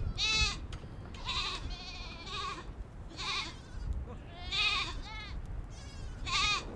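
Goats bleating, about seven short, quavering calls from several animals, one after another.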